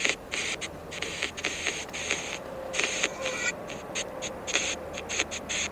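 Spirit-box style app on a phone sweeping through choppy bursts of static hiss that cut in and out several times a second, listened to for words from spirits.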